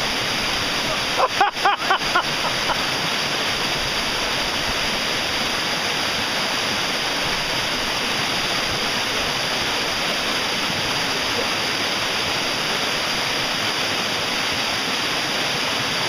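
A waterfall's white water rushing steadily and loudly over rocks.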